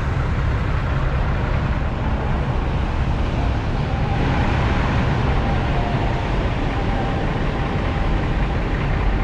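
Steady low rumble of diesel semi-truck engines idling in the lot, with a faint steady whine joining about four seconds in.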